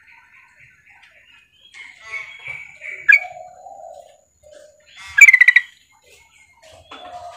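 Female yellow-vented bulbul (trucukan) calling to a male. It gives a soft run of quick repeated notes, then a chattering stretch with one sharp note about three seconds in, and a loud burst of rapid notes about five seconds in.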